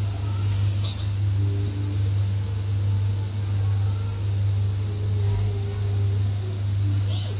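A steady low hum, with two brief clicks, about a second in and near the end.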